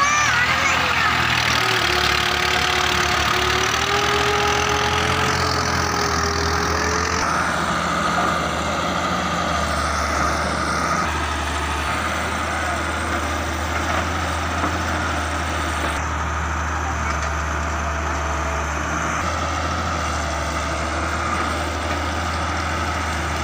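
Diesel engines of a farm tractor and a Daewoo wheeled excavator running steadily while the excavator loads sand into the tractor's trolley.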